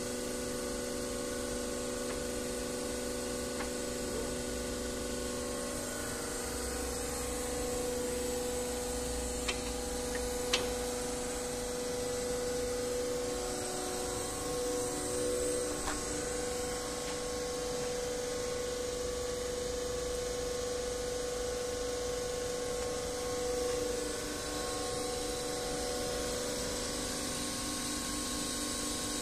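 Excavator-mounted hydraulic rock drill rig running with a steady mechanical drone whose pitch shifts slightly now and then. A few sharp clicks come around the middle.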